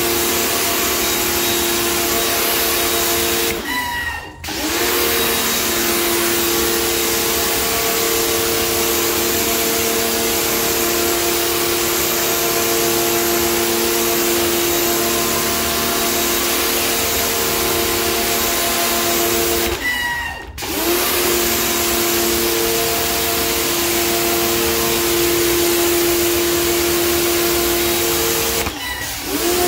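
Electric pressure washer running, its lance jet spraying onto floor tiles: a steady hiss of water over the pump motor's hum. About four seconds in and again about twenty seconds in, the trigger is let go for a moment: the sound drops out and the motor spins back up; it cuts out once more at the very end.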